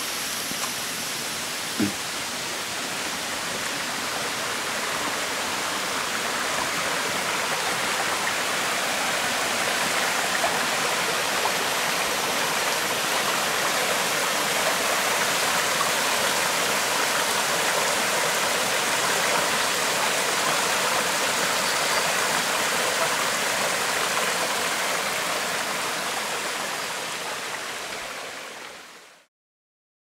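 Small forest stream splashing over rocks in a little cascade: a steady rush of water that swells slightly a few seconds in and fades out near the end. A single short knock about two seconds in.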